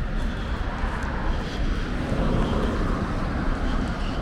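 Road traffic: a steady rush of passing vehicles, swelling as one goes by about two seconds in.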